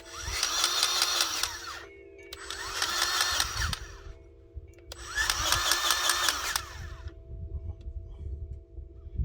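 Cordless electric grease gun running in three bursts of about two seconds each, with short pauses between, pumping grease into a backhoe's zerk fitting. A steady low hum runs underneath.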